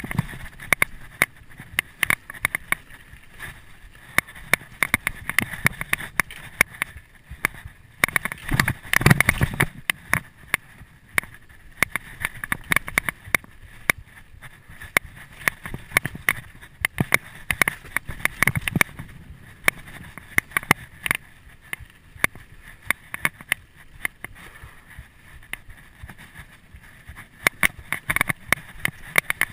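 2011 Canyon Nerve AM 7 full-suspension mountain bike rattling and knocking as it rides fast down rough dirt singletrack over roots, with tyre noise and a constant clatter of small impacts, heard through a GoPro HD Hero 2. A louder burst of hits comes about nine seconds in.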